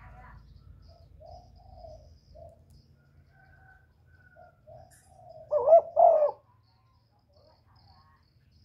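Spotted dove cooing: a run of soft, short low coos, then two loud coos about five and a half seconds in.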